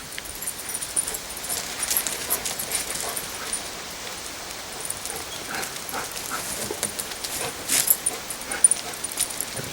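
Dogs playing: a puppy whimpering and yipping in short bursts, with scuffling and light metallic jingling.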